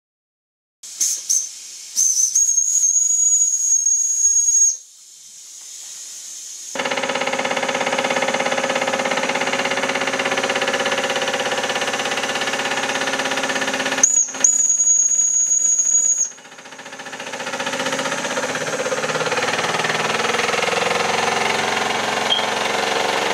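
Model stationary steam engine's boiler whistle blown: a couple of short toots, then a steady high whistle for about three seconds, and another whistle of about two seconds midway. Between and after the whistles the engine runs with a steady hiss of steam, which dips after the second whistle and then builds back up.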